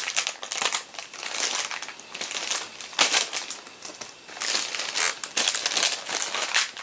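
Plastic toy packaging being crinkled and handled in irregular crackling bursts, the loudest about three seconds in and again about halfway through.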